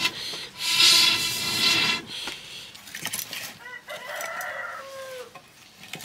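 A long breath blown through a metal blowpipe into a wood fire, a rushing hiss with a whistly pipe tone lasting over a second, to fan the embers. A rooster crows in the background a few seconds later.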